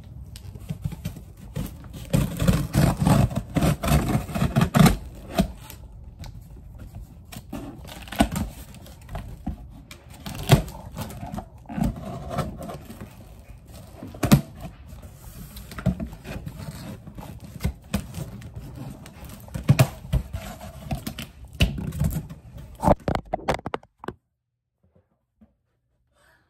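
A cardboard box being handled and opened by hand: irregular scraping, knocking and rustling of cardboard, with sharp knocks here and there. Near the end the phone recording it falls over, and the sound drops almost to silence.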